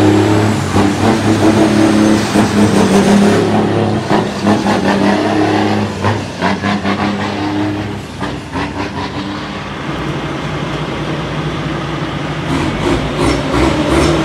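Heavy diesel truck engine, the International ProStar's Cummins ISX, running under way. Its pitch drops and then rises again around the middle as the engine speed changes.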